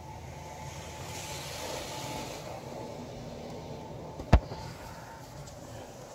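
Razor Edge touchless automatic car wash running around the car, heard from inside the cabin: a steady low hum of the machinery with water spray hissing against the body, swelling about a second in. A single sharp knock about four seconds in.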